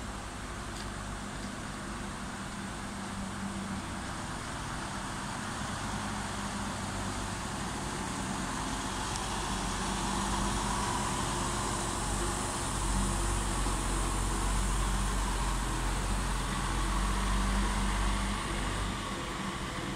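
Heavy-haul truck's diesel engine running at low speed as it pulls a multi-axle low-loader slowly past, a steady low hum with rumble. It grows louder and deeper in the second half as the rig draws close, then eases off near the end.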